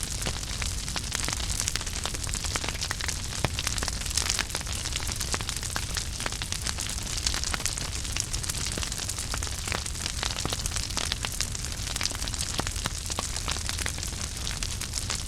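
Wood fire in a fireplace crackling steadily, with many small sharp pops over a continuous hiss and low rumble of the flames.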